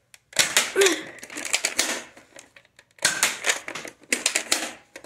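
Three bursts of rapid plastic clicking and rattling from a Nerf blaster being handled. The longest burst is near the start.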